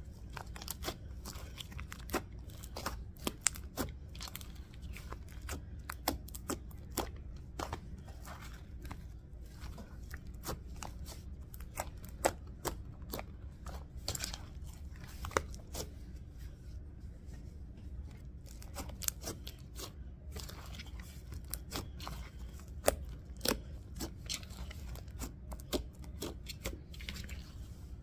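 Sticky, under-activated slime being stretched, folded and pulled apart by hand, giving many irregular sharp clicks, pops and tearing sounds as it sticks and lets go.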